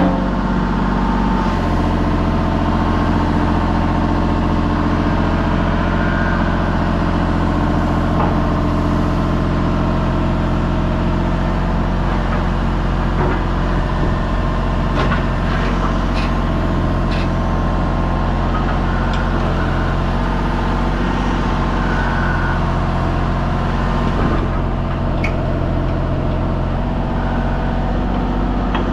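Diesel engine running at a steady speed, with a few light clicks and knocks over it now and then.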